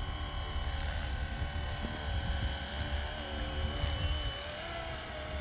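Electric scale RC helicopter (Flywing-controlled MD 500) in flight: the steady whine of its motor and rotor, its pitch wavering slightly, over a low rumble of wind on the microphone.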